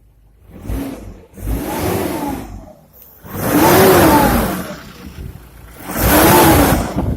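Nissan Pathfinder engine revved in about four short throttle blips, each with a whistle that rises and falls in pitch along with the revs. The whistle comes from around the turbocharger, which the owner suspects, or its actuator; turbo shaft play and oil leaks have been ruled out.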